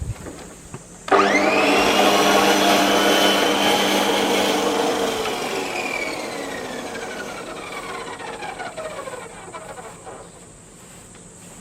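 Makita MLM-2851 electric reel lawn mower switched on about a second in, its motor and reel spinning up at once to a steady whine, then released about four seconds later and winding down, the pitch falling and fading over about five seconds. The owner puts an abnormal noise from this mower down to the reel blade shaft bearing.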